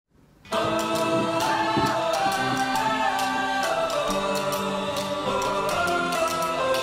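Background music starts about half a second in: an intro with held, slowly changing chords.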